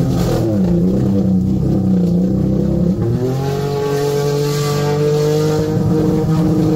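Off-road 4x4's engine revving hard under load in second gear while it strains to push through deep mud. The pitch dips soon after the start, then climbs about three seconds in and holds high.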